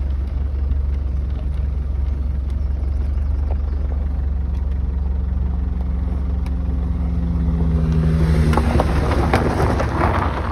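Land Rover Defender 300Tdi diesel driving, a steady low drone of engine and road noise. A steady engine note holds for a few seconds and stops about 8.5 s in, as a broader rushing noise swells near the end.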